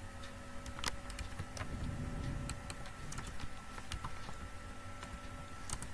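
A few scattered computer keyboard key clicks while code is entered in an editor, over a faint steady hum.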